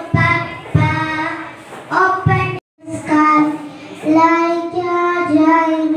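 A young girl singing solo into a microphone, holding long, wavering notes, with a brief break in the sound about two and a half seconds in.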